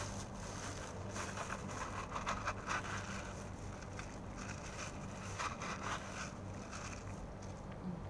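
A cat lapping water from a small glass, soft irregular wet laps and clicks, over a steady low hum.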